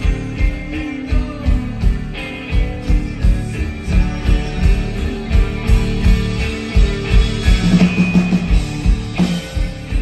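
Live rock band playing through the stage PA: distorted electric guitars, bass and drums with a steady kick-drum beat.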